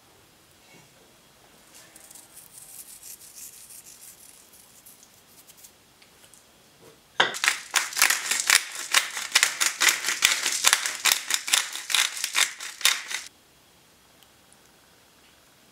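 A table knife scraping cream cheese across toast, then a pepper mill grinding in quick crunching strokes, about five a second, for some six seconds before stopping suddenly; the grinding is the loudest sound.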